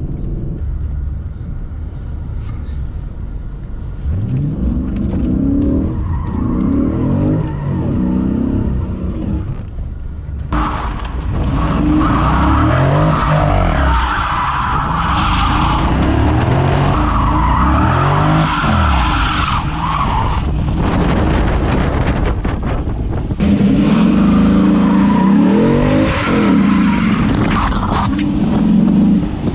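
Dodge Charger SRT8's 6.1-litre HEMI V8 revving hard again and again, its pitch sweeping up and falling back. It gets louder and denser after about ten seconds, as the sound jumps between separate takes.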